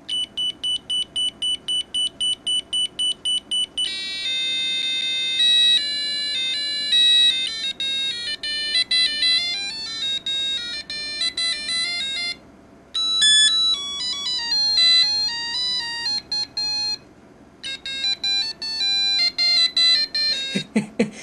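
Beeper of a cheap 7-colour LED cube digital alarm clock playing its alarm sounds: first a rapid beeping at one high pitch, about four beeps a second, then several short electronic melodies in plain beeper tones, broken by brief pauses.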